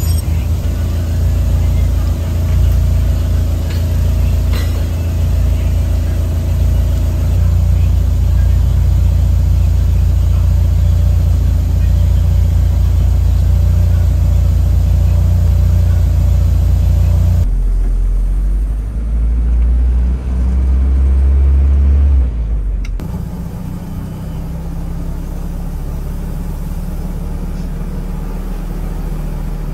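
Toyota Land Cruiser's engine running, heard from inside the cab as a loud, steady low rumble. After two abrupt cuts it settles into a quieter, steady drone as the truck drives along a road.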